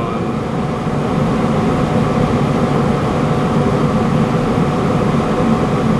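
Ruud gas furnace running: a steady rush of the blower and burners with a faint constant hum.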